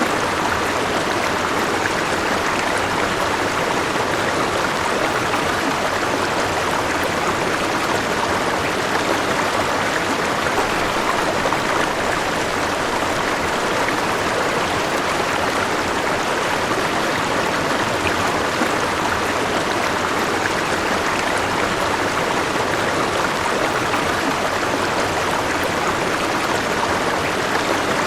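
River water flowing steadily over rocks: an even, unbroken rushing.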